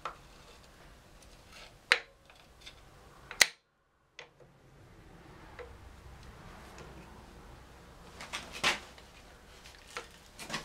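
Scattered sharp metallic clicks and clanks as motorcycle drum-brake shoes are levered back into place with a long steel lever, a few isolated knocks with the loudest about two and three and a half seconds in and a cluster near the end.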